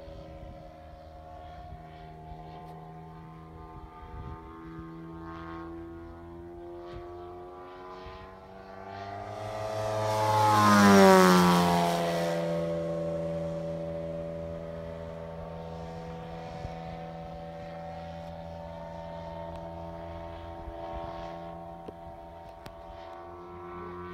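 Giant-scale radio-controlled Grumman F3F biplane model's engine and propeller droning in flight. It grows louder to a close pass overhead about 11 seconds in, where the pitch drops as it goes by, then drones on more distantly.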